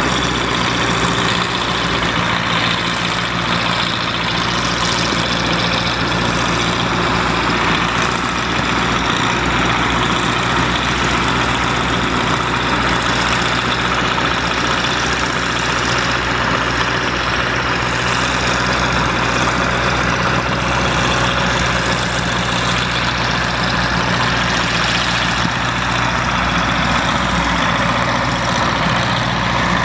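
Harvesting machine's engine running steadily at an even speed, with a constant mechanical hum over it and no change throughout.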